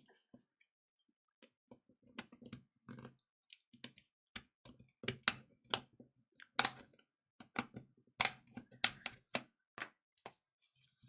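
Sharp, irregular clicks and snaps of hand tools prying at a tablet's casing during disassembly, growing louder and more frequent about halfway through.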